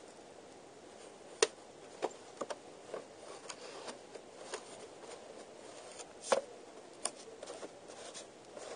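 Hands handling a VHS tape and its paper insert: scattered light clicks and faint rustling, with sharper clicks about a second and a half in and again around six seconds in.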